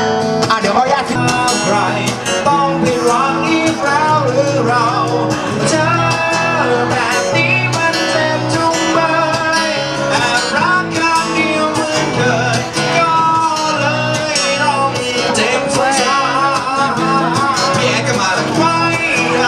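A song with a singer and guitar over a steady, repeating bass line.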